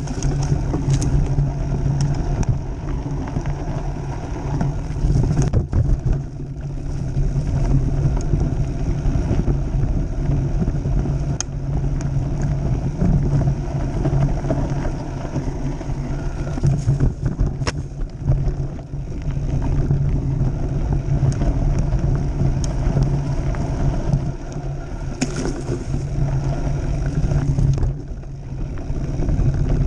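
Mountain bike rolling fast over a dirt and gravel trail: a steady rumble of the knobby tyres on the ground, broken by sharp rattles and knocks as the bike hits bumps.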